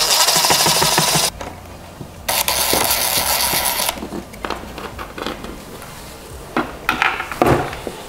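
A cordless power driver runs twice, each time for about a second and a half, backing out the Torx screws that hold a Tesla Gen 3 Wall Connector's cover. Light knocks and clicks of the tool and cover being handled follow.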